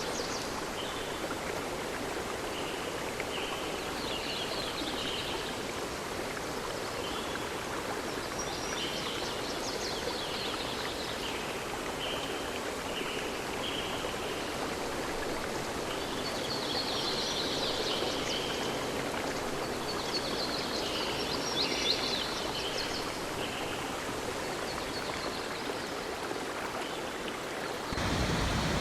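Flowing river water rushing steadily, with small birds chirping in short high bursts on and off above it. Near the end the sound changes abruptly to a louder, fuller rush of water.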